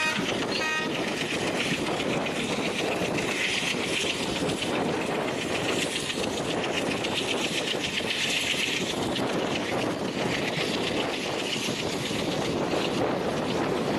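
A passing train running along the track, its wheels and coaches making a steady rumble and clatter, with a brief last note of the horn just after the start.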